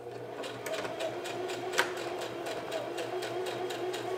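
Electric sewing machine stitching grosgrain reinforcement onto tarp fabric: a steady motor whine with an even run of needle clicks.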